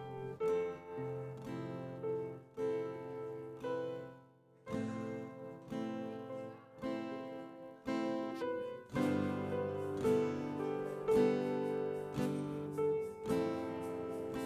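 Soft instrumental worship music: acoustic guitar strumming sustained chords every second or so, with no singing. The music drops out briefly about four seconds in, then comes back fuller from about nine seconds.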